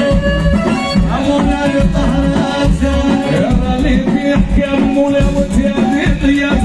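Moroccan chaabi band playing live through a PA: an instrumental passage with a violin, played upright on the knee, leading over bass and a steady percussion beat.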